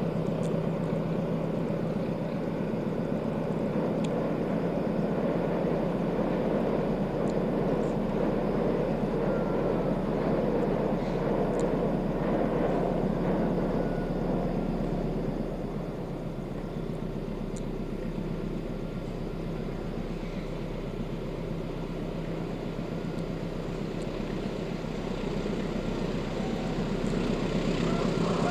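Diesel locomotive hauling a passenger train, heard from afar as a steady engine drone. It dips a little past halfway and grows louder again near the end as the locomotive comes closer.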